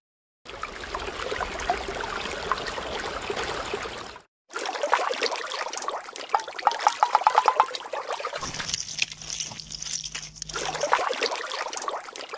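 Water trickling and splashing, crackly and wet, in separate stretches broken by short silent gaps, with a quick run of clicks a little past the middle.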